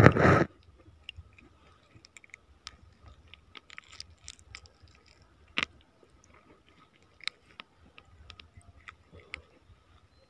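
Close handling sounds of a fish being unhooked: faint scattered clicks and small scrapes as fingers work a hooked shrimp lure out of a grouper's mouth, opening with a brief loud rustle and with one sharper click about halfway through.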